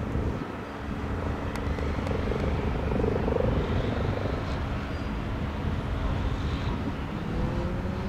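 MBB-Kawasaki BK117-A3 twin-turbine helicopter lifting off and climbing away: steady rotor and engine noise with a faint high turbine whine.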